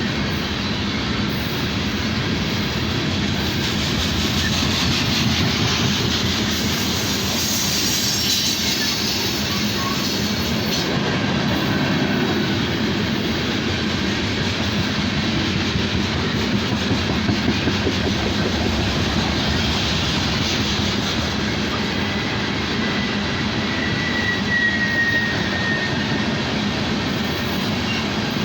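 Loaded coal train cars rolling past on the rails with a steady rumble of wheels, and a brief thin wheel squeal near the end.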